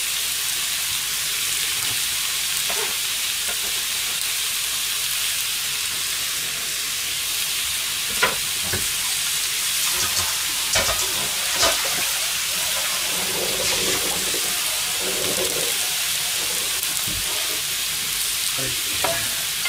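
Beef, vegetables, fried tofu and shredded kombu sizzling steadily in a frying pan over a gas burner, with a few sharp clicks around the middle.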